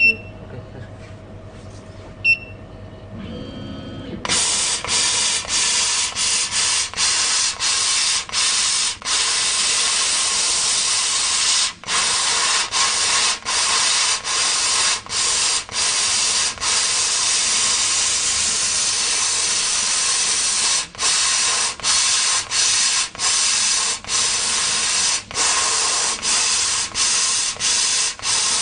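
CO2 laser cutter cutting 4 mm wood: about four seconds in, a loud steady hiss from the cutting head and its air jet starts, broken by many short gaps as the beam stops between cut segments. Two short high beeps sound in the quieter opening seconds.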